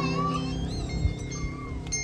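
Music at the close of a song: a few high, wavering held notes over steady low held tones, fading out.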